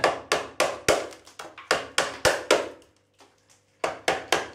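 A hammer knocking repeatedly at a plastic flush-mounted electrical box set in a masonry wall, rapid sharp blows about four a second, to break its grip and work it loose. The blows pause for about a second near the three-second mark and then resume.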